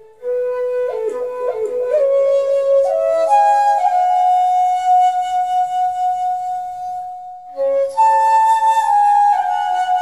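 Flute music: a slow melody of long held notes with a few quick ornamental turns, pausing briefly about seven and a half seconds in before resuming on a higher note.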